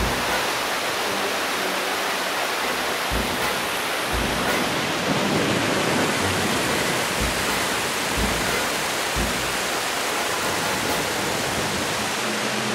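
Small mountain stream cascading over rocks, a steady rush of water, with a few short low bumps through it.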